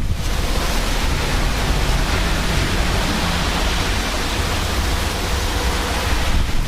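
Thunderstorm wind rushing past and buffeting the microphone, a steady loud hiss over a low rumble.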